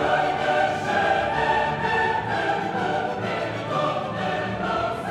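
Background music: a choir singing in a classical, operatic style with sustained voices.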